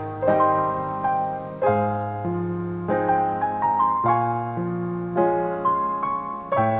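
Background piano music: a slow, gentle melody over sustained chords, with notes struck and left to ring.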